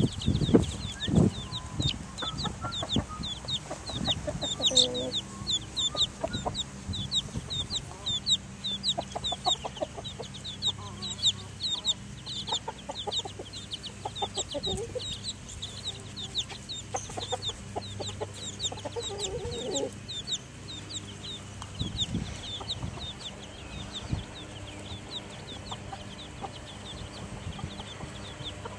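A brood of Transylvanian Naked Neck chicks peeping nonstop in short, high cheeps. A mother hen clucks lower now and then.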